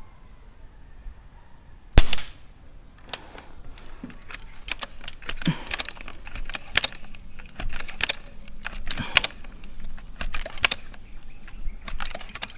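A single sharp shot from a bullpup multi-pump air rifle firing a 12-grain slug, about two seconds in. It is followed by a long run of short metallic clicks and rattles, roughly two a second, as the rifle's pump lever is worked stroke after stroke to charge it for the next shot.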